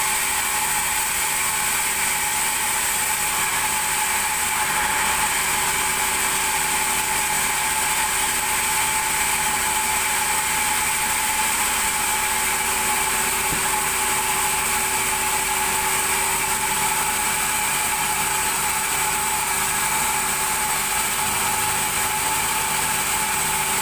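Large vertical log bandsaw running steadily with no cutting: a constant machine hum and whine with several held tones and no change in pitch or load.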